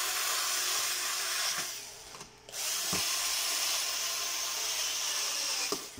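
Black+Decker cordless screwdriver motor running in two runs, about two and three seconds long, with a short pause between, driving a screw tight.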